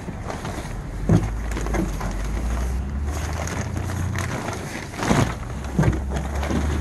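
A steady low hum under a noisy haze, with a few short handling sounds about a second in and again around five and six seconds in.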